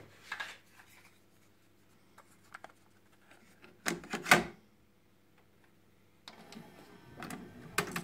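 Mechanical clicks and clunks from a Technics RS-B965 cassette deck being operated: a few light clicks, two loud clunks about four seconds in, then a run of rattling clatter near the end. A steady low hum sits underneath.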